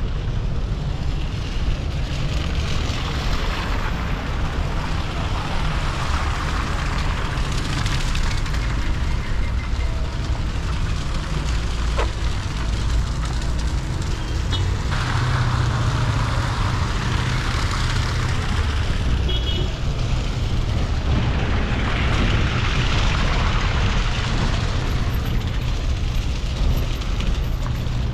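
Vehicle moving through rain-wet streets: a steady low rumble of engine and wind, with a hiss of spray from wet road and rain that swells and fades every few seconds.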